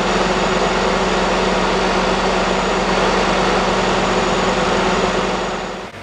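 A vintage vacuum cleaner's motor running steadily, a loud even rush of air over a low hum, cutting off near the end.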